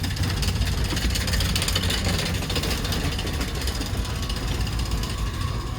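Steady low rumble of a cruise ship's interior, with an even background hiss above it.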